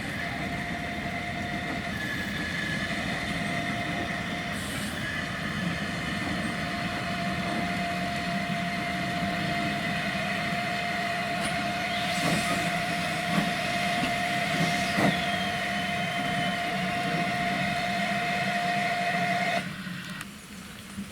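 Ffestiniog Railway narrow-gauge train running, with two steady held tones over the running noise and a few knocks about halfway. The sound cuts off abruptly near the end.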